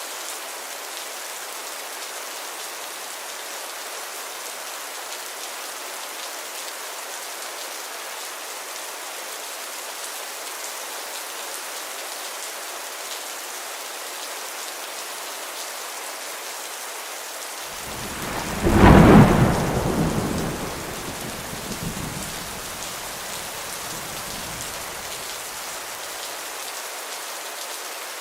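Steady heavy rain, with a single clap of thunder about two-thirds of the way through that rumbles away over several seconds.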